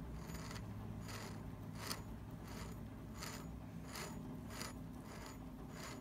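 Milling machine spindle with a drill chuck and hole saw being turned slowly to check runout on a dial indicator, making an even, repeating scrape-and-click about one and a half times a second over a steady low hum.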